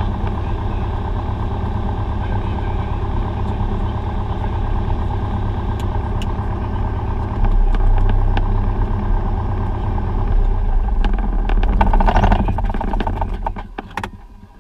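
Cessna 172's piston engine running at idle, heard from inside the cockpit. It gets louder about seven seconds in, then cuts out and dies away near the end as the engine is shut down and the propeller winds to a stop.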